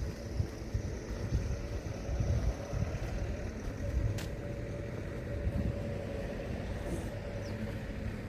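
Outdoor neighbourhood ambience picked up by a walking phone: a low, fluctuating rumble under a faint steady hum, with one sharp click about four seconds in.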